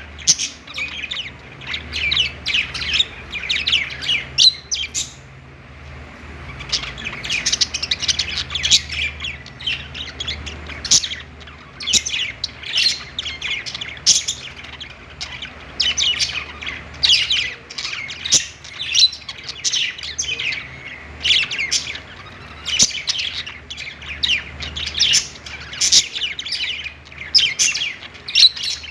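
A flock of budgerigars chirping and warbling in quick, overlapping calls, with a short lull about five seconds in.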